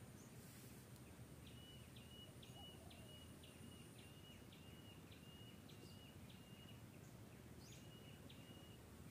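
Faint outdoor ambience with a bird calling a run of short high notes, about two a second, starting about a second and a half in, pausing, and resuming briefly near the end.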